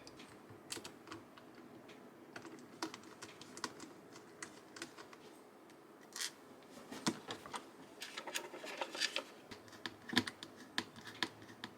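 Scattered small clicks and taps of hands working on a mechanical keyboard assembly as its screws are being fitted, coming thicker and faster in the second half.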